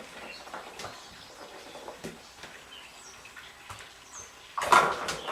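Kittens moving about in a bathtub: faint, scattered light clicks and scuffs in a quiet room, then a louder burst of rustling noise near the end.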